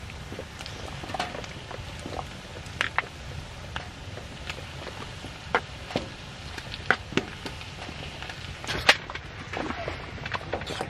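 Sliced raw meat tipped from a plastic bag into a cast-iron skillet of onions frying in oil, with scattered sharp pops and clicks from the hot oil, the bag and the utensils. The loudest is a single sharp clink about nine seconds in, around when a fork is stirring a pot of rice. A steady low rumble runs underneath.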